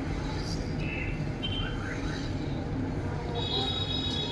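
Slow city traffic heard from a moving car: a steady low engine and road rumble, with a few short high-pitched tones over it, the longest lasting about a second near the end.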